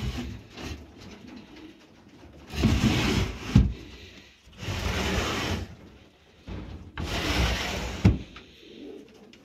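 Pigeons in a loft: three bursts of rustling, flapping noise about a second long each, the first and last ending in a sharp knock.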